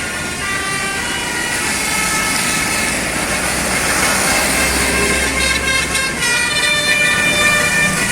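Telolet bus horn, a multi-note musical air horn on a tour bus, sounding a run of steady notes that change pitch every second or so, loudest near the end, over the bus engine's running noise.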